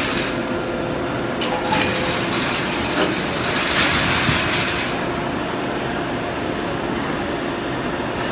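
Steady drone of woodworking-factory machinery, with a couple of clicks early and a loud hissing rush from about two to five seconds in.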